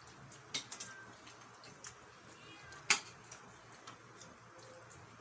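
Meal-table eating noises: a few sharp clicks and taps, the loudest about three seconds in, with a faint short high-pitched call in the background.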